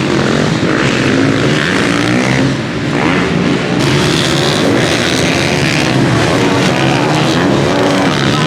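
Several supermoto racing motorcycles' single-cylinder engines at high revs, rising and falling in pitch as the riders shift and race past, several bikes overlapping.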